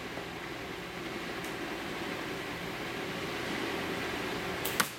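Steady background hiss, then near the end a sharp crack from a shot of an MB03 L96A1 spring-powered airsoft sniper rifle, the BB striking the cardboard-backed paper target.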